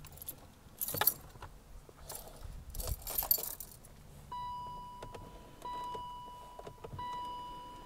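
Ignition keys jangling and rattling on their ring as hands work under the steering column. From about four seconds in, the car's warning chime sounds three times, one steady tone about every 1.3 seconds, each ring fading slowly.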